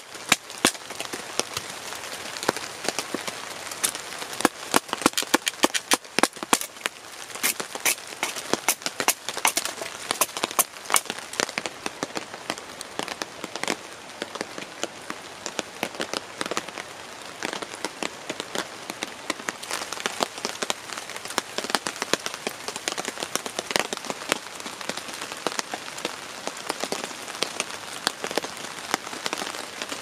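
Raindrops striking a stretched tarp: a steady hiss of rain with many irregular, sharp taps of drops, thickest in the first dozen seconds.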